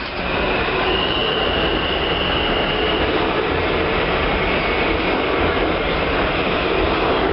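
New York City Subway train running past along the station platform: a loud, steady rumble of steel wheels on rail, with a thin high wheel squeal for a couple of seconds about a second in.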